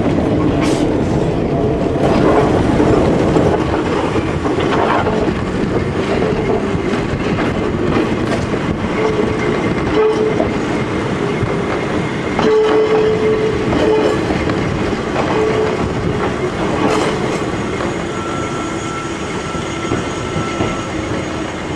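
Ichibata Electric Railway 3000-series electric train (3008F) rolling alongside, a steady running hum with a few clacks of the wheels over rail joints.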